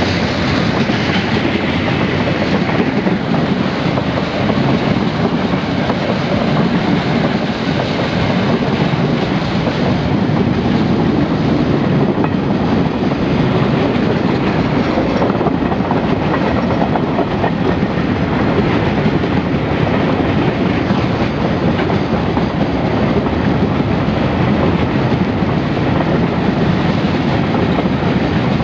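Freight train passing close by. Its diesel locomotives go past at the start, then a long string of freight wagons rolls by with a steady, loud noise of wheels running on the rails.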